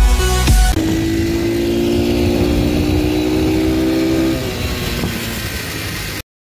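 Brief electronic intro music, then a 110cc pit bike's single-cylinder four-stroke engine running under way, its pitch rising slowly as it pulls, then dropping away and quieter about four seconds in. The sound cuts off suddenly near the end.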